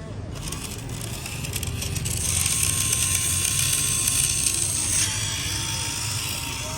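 Small electric motors and gearing of a radio-controlled model construction machine whirring, growing louder about two seconds in and easing off again near five seconds.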